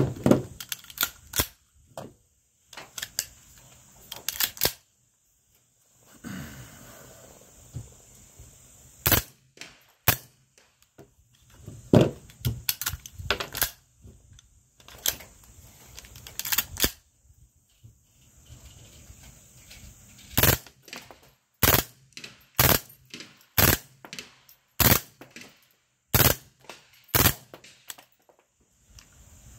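Gunshots: a long string of single sharp shots and quick pairs at uneven gaps, with a tighter, more regular run of shots in the last third.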